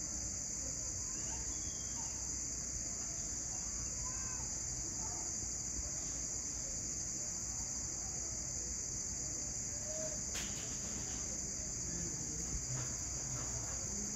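Crickets singing in a steady, unbroken high-pitched chorus, with a single sharp click about ten seconds in.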